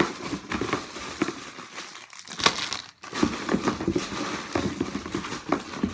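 Plastic packaging crinkling and rustling as packaged squishy toys are rummaged through and handled, with a short pause about three seconds in.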